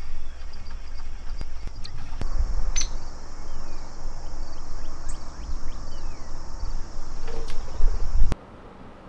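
Outdoor ambience: a steady high-pitched insect chorus with a few short bird chirps and scattered sharp clicks over a low rumble. It all cuts off suddenly near the end.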